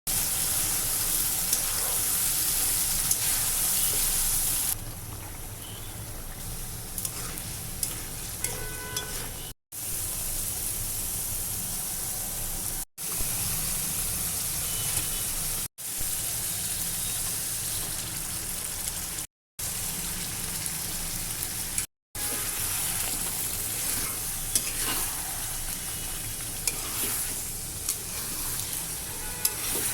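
Food frying and sizzling in hot oil in a pan, stirred now and then with a scraping spoon. The hiss is steady, broken by several short dead-silent cuts.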